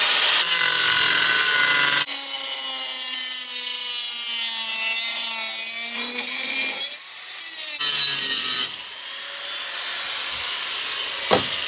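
Corded angle grinder with a cut-off wheel cutting through a metal bar, its whine sagging slowly in pitch as the wheel bites. The noise dips briefly about seven seconds in, comes back loud, then drops sharply about nine seconds in as the cut ends, leaving a quieter fading whine.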